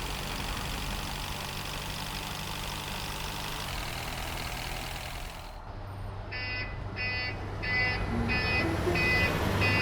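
A steady rumbling hiss with a low hum, typical of a truck sound effect, cuts off about five and a half seconds in. Then a tow truck's reversing alarm starts beeping steadily, about two beeps a second, over a low engine hum.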